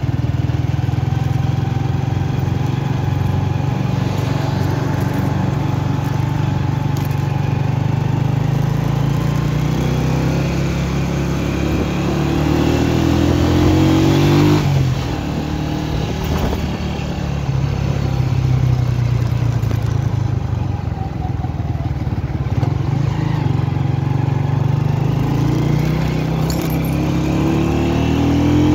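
Motorcycle engine running while riding. Its pitch climbs and then drops suddenly twice: once about halfway through and once at the very end.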